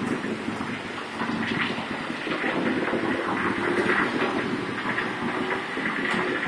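Street traffic on a wet road: cars and motorbikes driving past with engines running and tyre noise on the water-covered tarmac.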